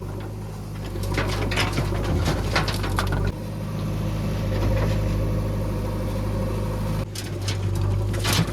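JCB 3DX backhoe loader's diesel engine running steadily, with short bursts of clattering as its bucket works the load, about a second in and again near the end.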